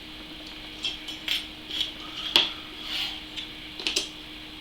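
Small metal parts of an EK-Supremacy EVO CPU water block clinking and tapping as they are handled and set back in place: a string of light clicks, the sharpest about halfway through.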